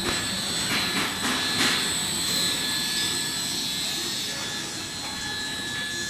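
Semi-automatic can welding machine running, with a steady high whine and a few sharp clicks in the first two seconds.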